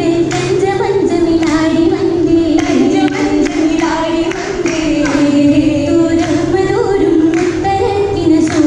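Oppana song: young female voices singing a Mappila song together, with regular hand claps keeping the rhythm.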